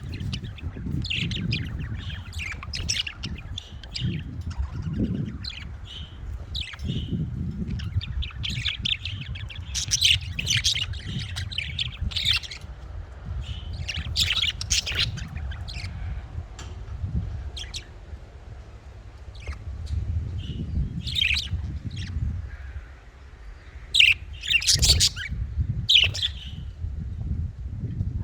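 Budgerigars chirping and chattering in a run of short, quick calls, with a few louder squawks near the end, over a low background rumble.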